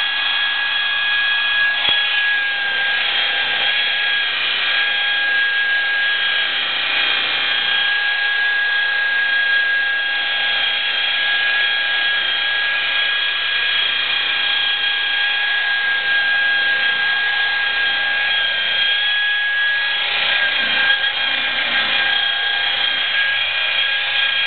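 Electric rotary polisher with a wool pad running steadily, cutting sanded-out clear coat with rubbing compound: a steady high motor whine whose pitch shifts slightly a couple of times.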